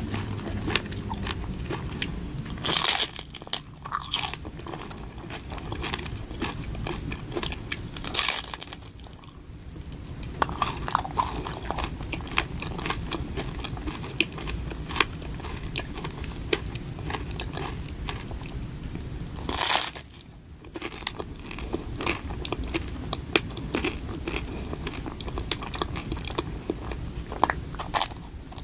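Close-miked ASMR eating: steady chewing with many small crackling clicks, and four loud crunching bites into a crisp snack, about 3, 8 and 20 seconds in and near the end.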